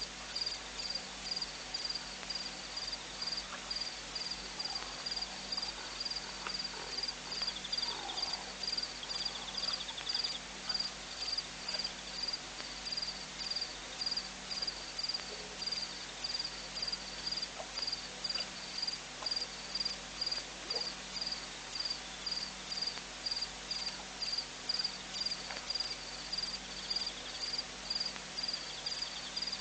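A cricket chirping steadily in an even rhythm, about two high chirps a second. A second insect trills faintly now and then, over a low steady hum.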